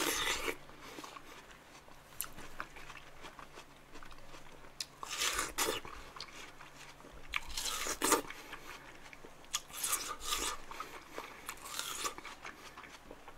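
Biting into and chewing wedges of fresh watermelon close to the microphone: about five crisp bites spread through, with quieter chewing between them.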